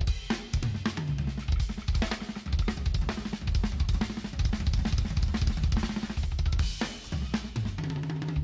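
Background music: a drum-kit-driven track with snare, bass drum and cymbals over a bass line, cutting in suddenly.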